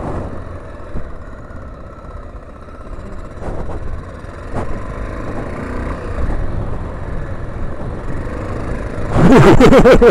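A 1987 Honda XL600R's 589cc single-cylinder four-stroke engine running at low speed while the bike rides over grass and dirt. About nine seconds in the sound gets suddenly much louder.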